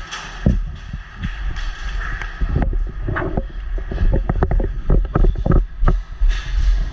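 A quick, irregular run of low thumps and knocks, thickest from a couple of seconds in to about six seconds, over a steady low rumble.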